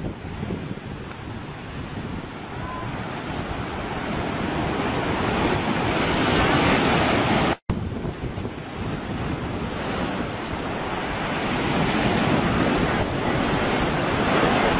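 Small surf breaking and washing, with wind buffeting the microphone. The rush swells and eases, and cuts out for an instant about halfway through.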